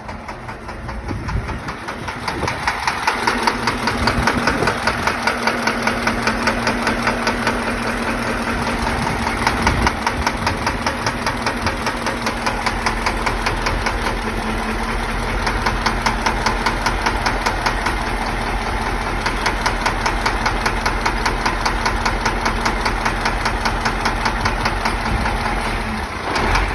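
Engine running with a steady, rapid knock, about four to five a second; the knock is blamed on a faulty fuel injector.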